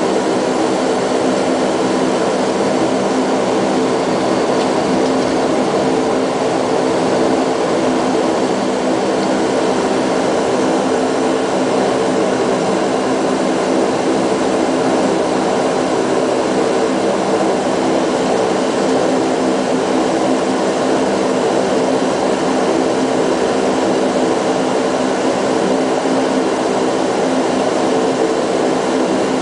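Bombardier Q400's Pratt & Whitney PW150A turboprop engines and propellers running at a steady drone, heard from inside the cabin, with a few steady humming tones and no change in pitch.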